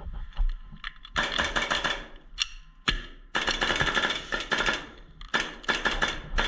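Full-auto airsoft gun firing in several short bursts of rapid clicking shots, each burst about a second long.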